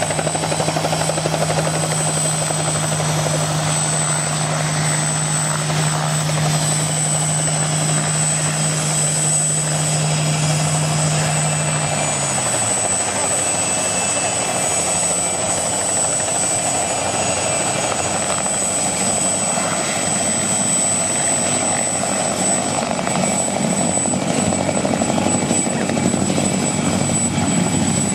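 Helicopters running close by: a Bell 47 hovering with a steady engine and rotor hum that falls away about twelve seconds in, then a second helicopter flying low and hovering just above the ground, a steady rotor and engine rumble.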